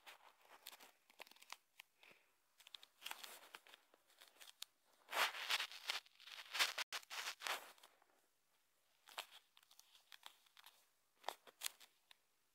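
Irregular rustling and crackling bursts, loudest from about five to seven and a half seconds in, with a few short sharp clicks near the end.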